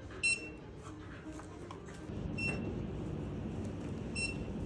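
Handheld barcode scanner beeping as items are scanned: three short high beeps about two seconds apart. A low background rumble comes up about two seconds in.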